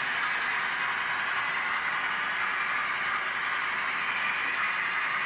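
HO scale model freight train rolling steadily along the layout track, its small wheels running on the rails.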